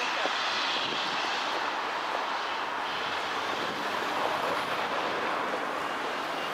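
LNER A4 steam locomotive 4464 Bittern hissing steadily as steam blows out at its cylinders while it moves off slowly, its cylinder drain cocks open.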